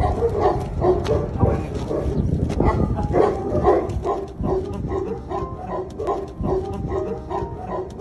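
Dog barking repeatedly in quick short barks, several a second, over a low rumble of wind on the microphone.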